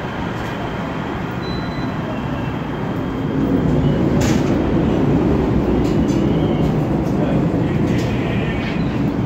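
Steady noise of a metro light-rail train running in the station below, growing louder about three seconds in, with a sharp click a little past four seconds.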